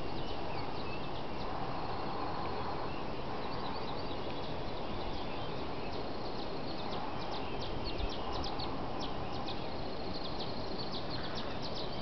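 Small birds chirping, many short high notes scattered throughout and busier in the second half, over a steady background noise.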